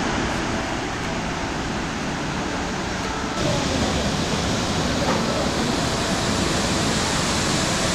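Hulu Ganga waterfall: a steady rush of falling water, getting a little louder and brighter just over three seconds in.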